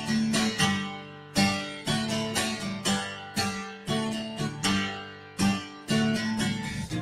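Acoustic guitar strummed in a steady rhythm, with no singing: a chord struck about every half-second to second, each one ringing out before the next.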